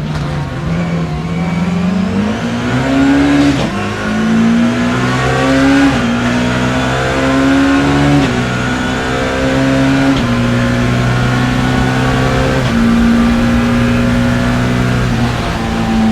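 BMW E30 M3's S14 four-cylinder race engine heard from on board, dipping in revs and then climbing hard about two to three seconds in. Its note then changes pitch in steps several more times, with gear changes and lifts as the car is driven at racing pace.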